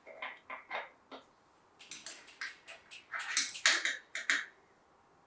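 Cable clips being hooked around a bicycle brake hose and gear cable and snapped shut: a few separate small clicks, then about two seconds in a quicker run of clicks and rustling of handling.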